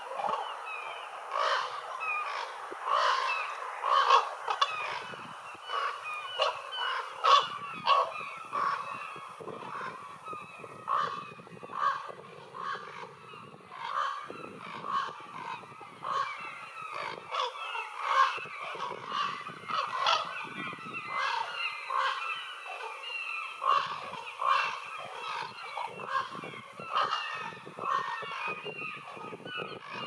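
A group of ravens calling without pause, many short calls overlapping one after another.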